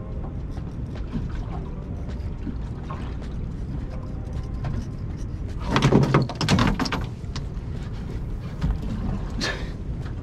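Steady wind and river-water noise on an open boat. About six seconds in comes a loud burst of rustling and knocks as the angler turns and grabs a fishing rod out of its holder on a bite, with a shorter rustle near the end.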